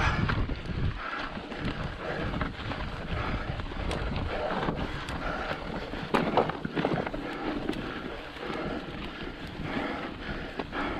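Wind buffeting the microphone in an uneven low rumble, with a few faint clicks over it.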